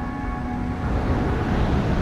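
Sea surf: a wave rushing in, swelling louder in the second half, over a soft background of held music tones.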